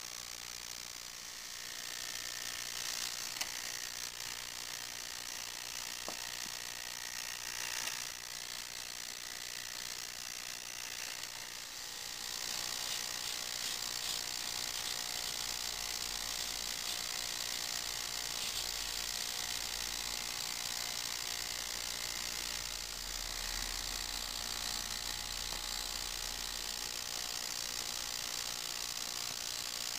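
Ultrasonic cleaner running: a steady high buzzing hiss from the cavitating cleaning bath, which gets louder about twelve seconds in.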